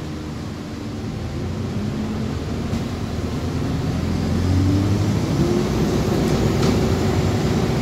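Interior sound of an Alexander Dennis Enviro400H hybrid bus under way: the electric drive motor whines, rising in pitch as the bus accelerates from about four seconds in and holding near the top, over a steady low running rumble and road noise.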